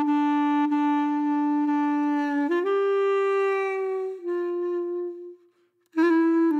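Background music: a solo reed-like wind instrument holding long notes. It steps up in pitch about two and a half seconds in, then slightly down, fades to a short silence, and starts new notes near the end.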